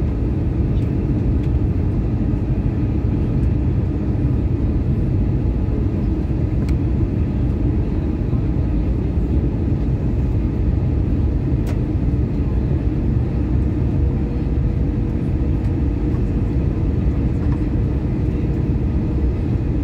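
Steady cabin noise of an Airbus A320-233 in flight, heard from a window seat beside the wing: a low, even rush of airflow and the running IAE V2500 turbofan, with a faint steady hum over it.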